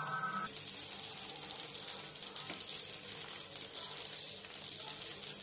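Coconut kurma simmering in a steel pot on a gas stove, giving off a steady, faint sizzling hiss.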